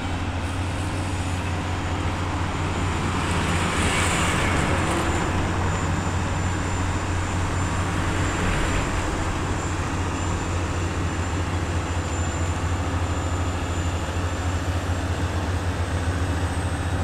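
Several Volvo heavy trucks' diesel engines running steadily under load as they haul a very heavy load at crawling speed, a loud, continuous low drone. A brief hiss rises about four seconds in.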